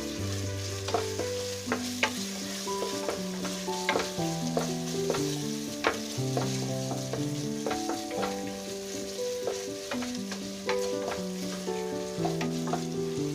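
Onion and ginger-garlic masala sizzling in hot oil in a pressure cooker while a spoon stirs and scrapes it, giving frequent sharp clicks against the pot. Background music with held, stepping notes plays throughout.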